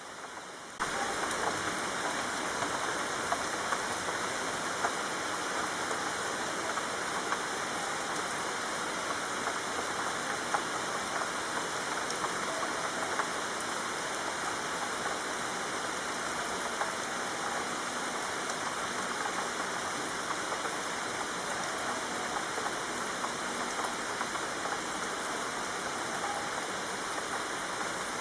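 Steady rain falling on hard surfaces, an even hiss with scattered drop ticks; it gets louder about a second in and then stays steady.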